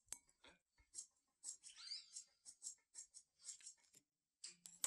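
Faint close-up chewing of food: a run of short, crisp crunches, about three a second.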